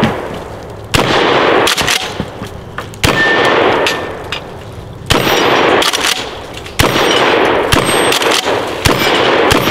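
Standard Manufacturing DP-12 12-gauge double-barrel pump shotgun firing birdshot: about five loud shots roughly two seconds apart, each with a long echoing tail. Between the shots come sharp metallic rings as steel targets are hit and fall.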